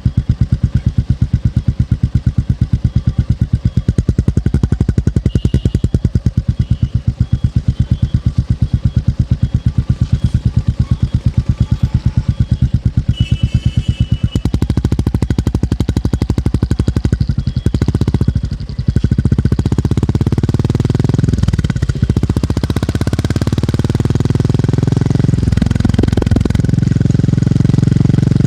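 Motorcycle engine and exhaust with a distinct thump, running at low revs with evenly spaced beats. About two-thirds of the way in it pulls harder, the revs climbing and dropping through gear changes.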